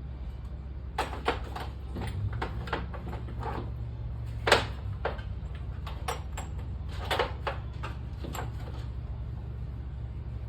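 A series of irregular clicks and knocks, the loudest about four and a half seconds in, over a steady low hum.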